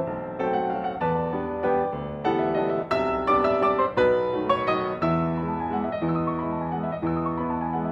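Grand piano played solo: chords and melody notes, busiest about three to four and a half seconds in, then a line of notes stepping downward over held bass notes.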